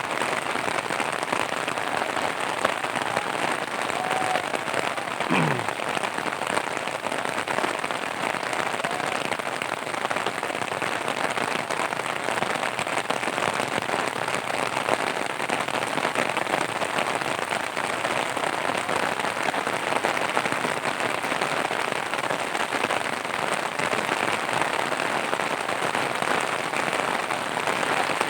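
Heavy rain falling steadily, a dense even patter. About five seconds in, a brief sound sweeps quickly down in pitch.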